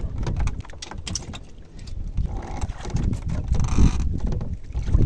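Wind rumbling unevenly on the microphone, with scattered light clicks and knocks.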